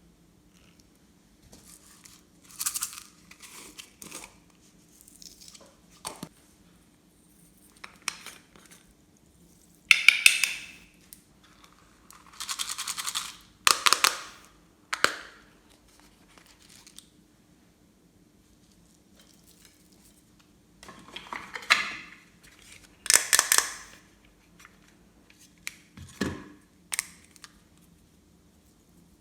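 Intermittent handling noises from craft materials and their plastic packaging: crinkling, snipping and scraping in short bursts, the loudest at about ten, fourteen and twenty-three seconds in, with a dull knock near the end.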